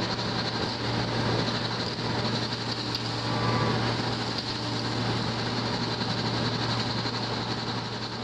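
Skid-steer loader engine running steadily at working speed while the loader-mounted TOP-SPREAD bale spreader's rotor shreds and throws bale material: a constant low hum under a loud, even hiss.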